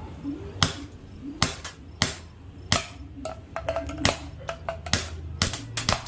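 A quick series of sharp knocks and clicks as airsoft BBs hit plastic bottle targets and the wooden board they stand on, some hits with a short hollow ring, as bottles are shot over.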